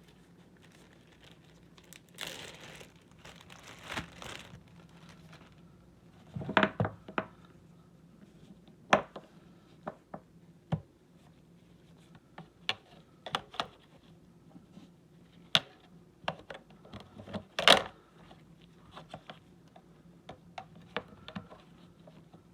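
Hands working a Panasonic RQ-8000 portable cassette player: a brief rustle of handling, then a run of irregular sharp plastic clicks and clacks, like keys and the cassette door being worked, with two louder clacks.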